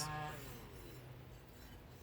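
Faint background noise with a low steady hum in a pause between speech.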